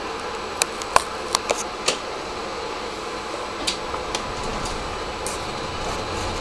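Steady hum of a tram's interior at low speed, heard from behind the driver's cab, broken by a quick run of sharp clicks in the first two seconds and two more about four seconds in.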